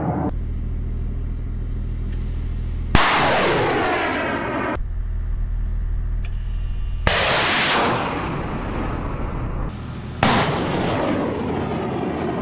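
Missile sound effects: three sudden blasts about four seconds apart, each trailing off with a falling whoosh, over a steady low rumble.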